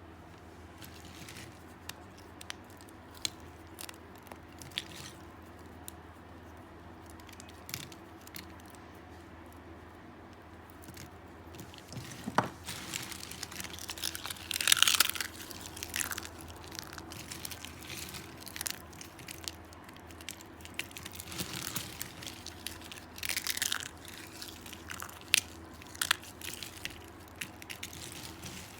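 Dry, crunchy soap being cut into little pieces: sharp cracks and crunches, sparse at first and coming thicker about halfway through, with a few louder crumbling crunches.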